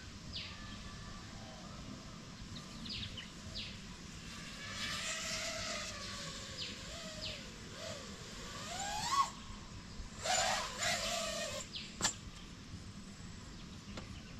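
Five33 Switchback Pro 5-inch FPV quadcopter, on 6S with T-motor 2208 motors and 5-inch props, flying past: its motor and prop whine swells from about five seconds in, wavers in pitch and climbs sharply near nine seconds, then comes back in a second burst around ten to eleven and a half seconds, followed by a single sharp click. Birds give short, quick falling chirps now and then.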